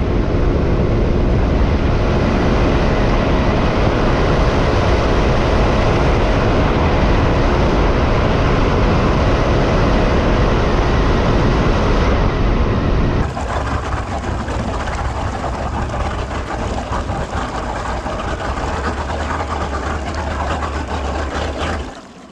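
Bass boat outboard motor running at planing speed, a steady drone under loud rushing wind and water noise. It drops back and quietens about thirteen seconds in as the boat slows.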